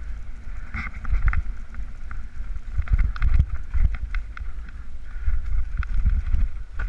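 Mountain bikes rattling and clattering down a rough forest singletrack, with many short sharp knocks throughout and heavy wind buffeting the microphone.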